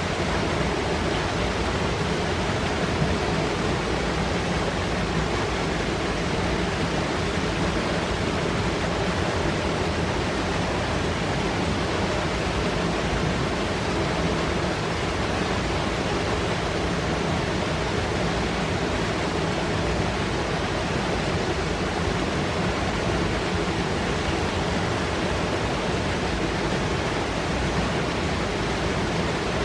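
Fast Carpathian mountain river rushing and foaming over rocks in a gorge: a steady, unbroken water noise.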